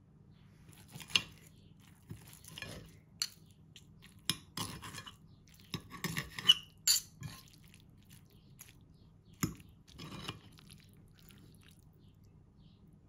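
Utensils clinking and scraping against dishware: a scattered series of sharp clinks among short, softer scrapes, which stop a few seconds before the end.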